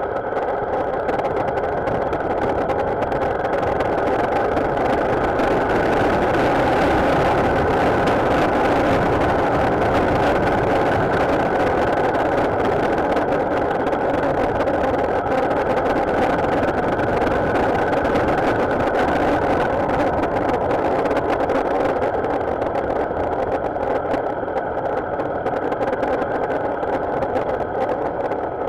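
Motorcycle being ridden, its engine and the road noise running steadily. It grows a little louder a quarter of the way through and eases off near the end.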